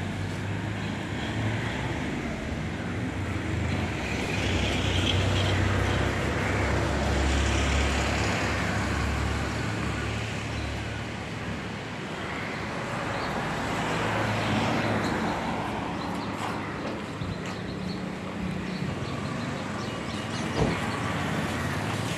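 Road traffic: passing vehicles' engines and tyres, swelling louder twice as vehicles go by. A single sharp knock near the end.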